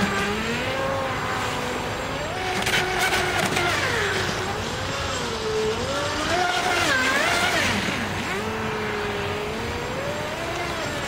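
Radio-controlled Sea-Doo RXP model jet ski's brushless electric motor whining, its pitch rising and falling again and again with the throttle.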